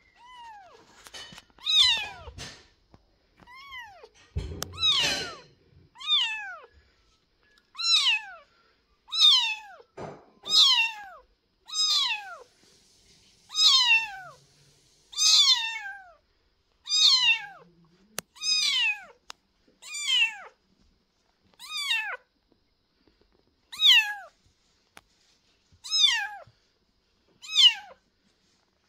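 A very young kitten, abandoned by its mother, meowing over and over, about one high cry every second or so, each call dropping in pitch at its end. These are a lone kitten's calls for its mother.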